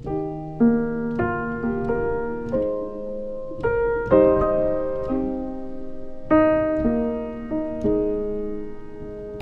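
Background piano music: slow chords struck one after another and left to ring.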